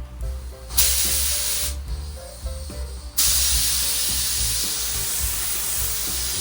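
Paint sprayer hissing as it lays a heavy coat of clear over the base: a short burst of about a second, a pause, then a steady spray from about halfway through.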